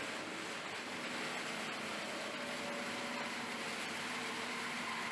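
Steady machinery noise with an even hiss and a faint hum, from a rubber washing line's rotating drum washers running.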